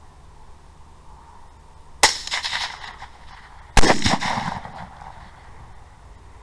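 Two suppressed 6.5 Grendel rifle shots, just under two seconds apart, each followed by an echo that dies away over about a second.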